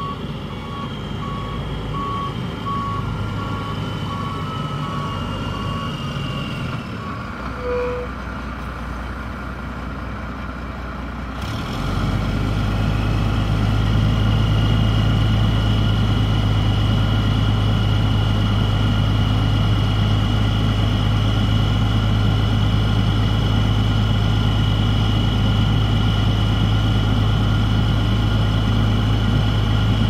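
Tri-axle dump truck backing up, its reversing alarm beeping steadily for the first several seconds over the diesel engine. About twelve seconds in the engine speeds up to a loud steady note as it drives the hydraulic hoist that raises the dump body to tip the load.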